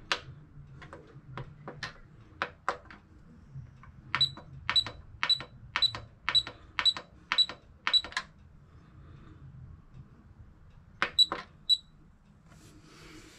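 Sunbeam slow cooker's control-panel buttons being pressed: a few plain clicks, then a run of about eight short high beeps, one every half second, and three more near the end, as the cooking time is stepped through and set.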